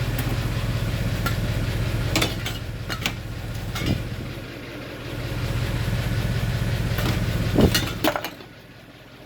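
Car engine idling steadily with the AC running, with a series of sharp metallic clicks and clanks from handling an AC recharge hose and can. The engine hum drops away near the end.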